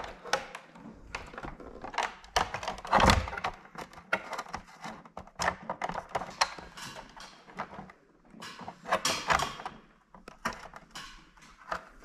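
Hands fitting the round LED plate of an emergency bulkhead light into its plastic base: a run of clicks, knocks and scrapes, with one louder thunk about three seconds in.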